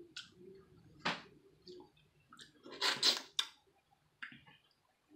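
Boiled crawfish shells cracked and pulled apart by hand: a sharp snap about a second in and a louder cluster of crackles around three seconds in.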